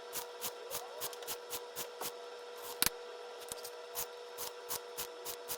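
Round chainsaw file being stroked by hand across the cutter teeth of a Stihl 440 Magnum chain, sharpening it: a quick, even run of short rasping strokes, about four a second, over a faint steady tone.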